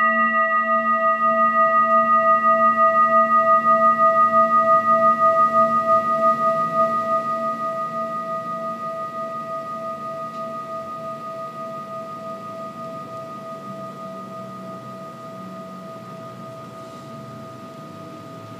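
Metal singing bowl ringing after a single strike of a wooden mallet: one clear tone with several higher overtones and a slow, pulsing wobble. It holds loud for about the first seven seconds, then slowly fades.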